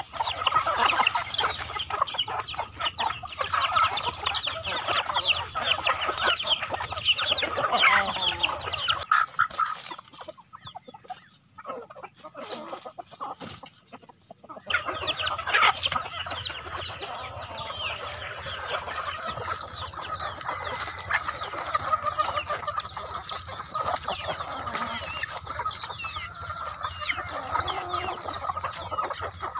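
A flock of chickens clucking and calling over one another, with a few seconds of near-quiet in the middle.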